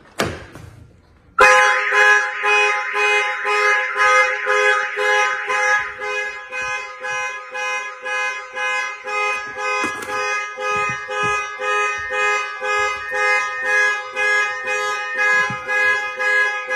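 Aftermarket Compustar car alarm siren going off, triggered by opening the car's door after it was unlocked with the factory key fob, which does not disarm this alarm. It starts suddenly about a second and a half in and pulses loudly two to three times a second, changing its tone pattern partway through and gliding upward near the end.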